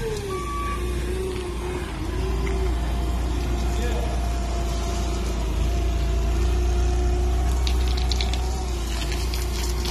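Propane-fuelled Yale forklift engine running under load as it drives off with a large plastic tank on its forks. Its pitch rises and falls in the first couple of seconds, then holds steady, with some light rattling near the end.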